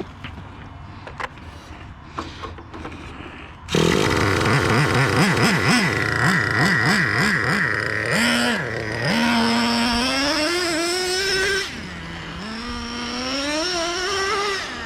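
A Traxxas Revo 3.3's TRX 3.3 two-stroke nitro engine starts suddenly about four seconds in, after a few light clicks. It revs in quick blips about twice a second, then is throttled up gradually twice, its pitch climbing steadily each time with a brief drop between, as in running-in of a new engine during break-in.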